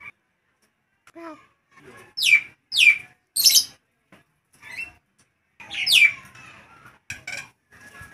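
Nias hill myna calling loudly: three sharp calls sweeping down in pitch, about half a second apart, then a fourth a couple of seconds later, with softer chatter and clicks between.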